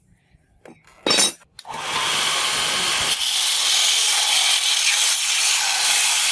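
Workshop tool noise: a few light clicks and a short louder burst, then from about two seconds in a steady, loud hissing noise that carries on.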